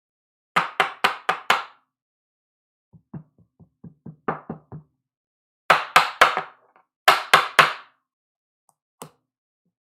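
Knocking in quick groups: five sharp knocks, then a softer run of about nine lighter taps, then two groups of four sharp knocks, and a single knock near the end.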